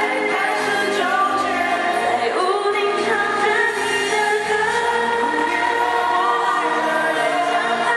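Live pop song: sung vocals over a band with drums and bass guitar, playing continuously.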